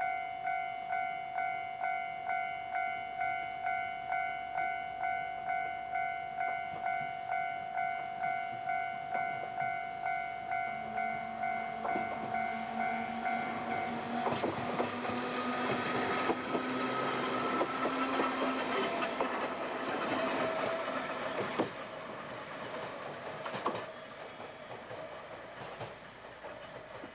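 Level-crossing warning bell ringing about twice a second, stopping about halfway, as an old-type JNR electric railcar passes: its motors humming and its wheels clattering over rail joints, the clatter fading away near the end.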